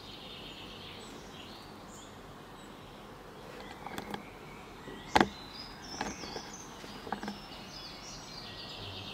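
Woodland ambience with birds chirping faintly, broken by a few sharp knocks and clicks, the loudest a little after five seconds in.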